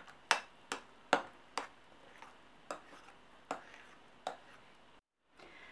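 Metal spoon clinking against the side of a glass bowl while stirring a thick tomato-and-apple purée: sharp clicks about twice a second, stopping about four seconds in.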